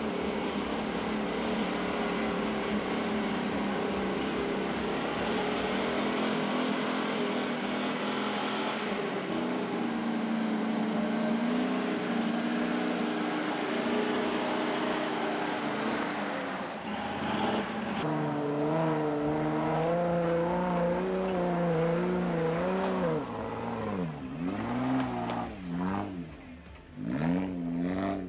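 Off-road 4x4 vehicle's engine running steadily, its pitch stepping up about eighteen seconds in, then revving up and down several times near the end.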